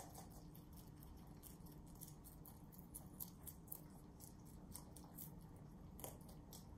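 Rabbits chewing crisp leafy greens (napa cabbage and cilantro): a faint, quick, irregular run of crunchy snips and clicks, with a few sharper crunches a little after three seconds and again about six seconds in.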